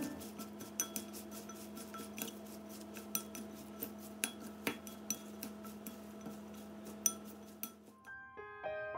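Chopsticks stirring chopped herbs and chillies in a ceramic bowl, clicking irregularly against the bowl, over faint background music. Piano music comes back in near the end.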